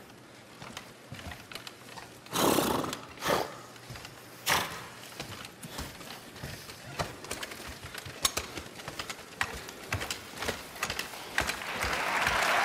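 A life-size horse puppet's hooves tapping and clopping on a stage floor, with horse breathing sounds voiced by its puppeteers: three loud breathy blows about two and a half, three and a half and four and a half seconds in. Audience applause starts to rise near the end.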